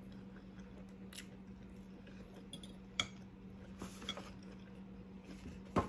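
Someone chewing a mouthful of food, with a few light clicks of a metal fork against the dish, the sharpest about three seconds in, over a steady low hum.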